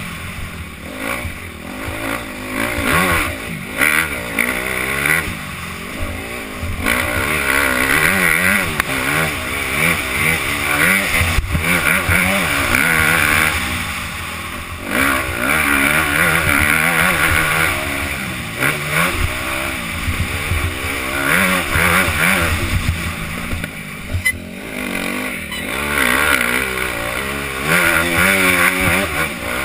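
Motocross bike engine revving up and down over and over as the rider accelerates, shifts and backs off around a dirt track, heard from a helmet-mounted camera.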